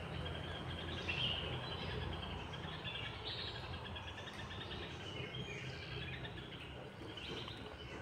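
A flock of chickens in a poultry shed chirping and peeping, many short overlapping calls at once, over a low steady hum.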